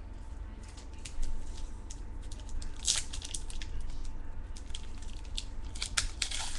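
Trading cards being handled and slid through the hands: irregular soft rustles and light clicks of card stock, with louder rustles about three seconds in and near the end, over a faint steady hum.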